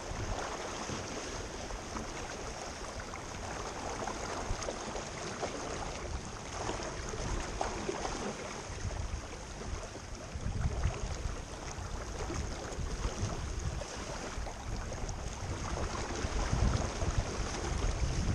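Wind buffeting the microphone over the steady rush and splash of water along a sailing boat's hull as it moves. The low wind rumble comes in gusts, stronger about ten seconds in and again near the end.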